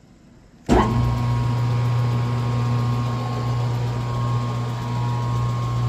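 Harrison M450 gear-head lathe's 10 hp three-phase 230 V motor switching on suddenly about a second in and running steadily, with a strong low hum and a fainter whine. Starting the motor sets the oil pump feeding the gearbox.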